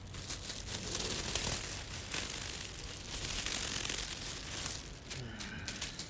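Handling noise: a jacket sleeve rubbing and rustling against the phone's microphone, with scattered small clicks as the phone is moved.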